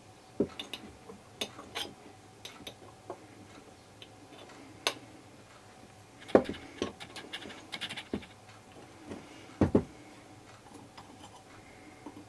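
Scattered clicks and knocks of hand tools and a small metal fitting being handled on a workbench: pliers gripping a brass horn part while another tool works at it.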